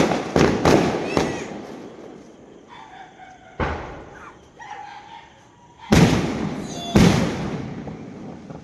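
Fireworks going off overhead: about six sharp bangs at uneven intervals, each trailing off in a rumbling echo, the two loudest near the end.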